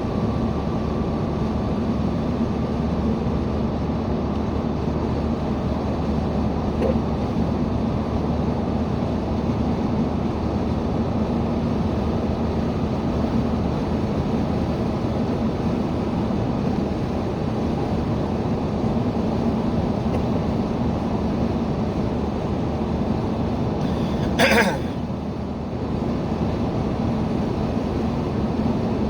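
Steady car-interior engine and road noise while driving, with one brief sharp sound about twenty-four seconds in.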